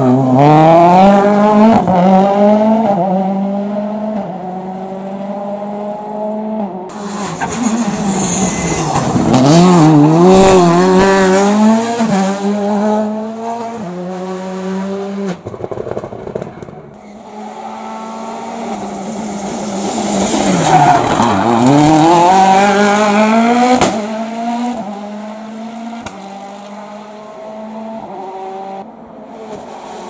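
Rally cars accelerating hard out of hairpins one after another, engines revving high and dropping with each gear change, with tyre squeal. Several cars pass in turn, the sound rising as each approaches and falling away, with abrupt cuts between them.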